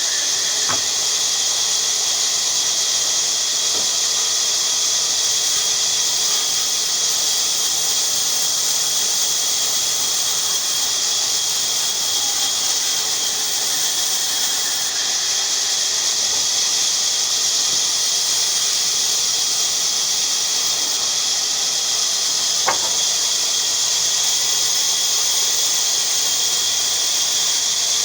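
Bandsaw running with a steady high-pitched hiss. A single click about three-quarters of the way through.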